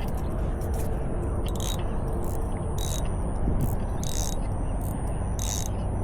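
Fishing lure retrieve: a spinning reel being wound while a topwater splash lure is twitched across the water, with a short hissing splash every second or so.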